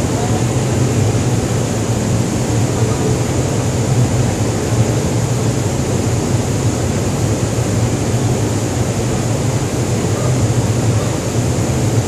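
Steady low drone with an even hiss from a ship's machinery and ventilation.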